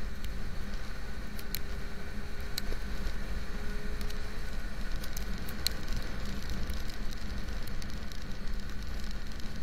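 Motorcycle running at highway speed in the rain: a steady rumble of wind and engine, with a few light ticks of raindrops striking the camera.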